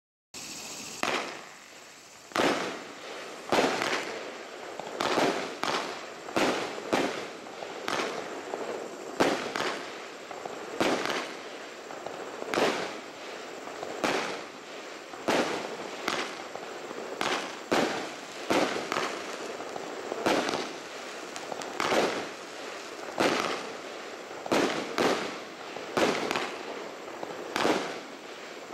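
Sunburst 25-shot, 30 mm firework battery (cake) firing shot after shot: a sharp report about every second or so, with a steady hiss between the shots.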